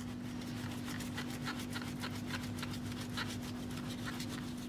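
A hand rubbing freshly ground rice flour through a plastic mesh sieve: a quick, even run of scratchy strokes, over a steady low hum.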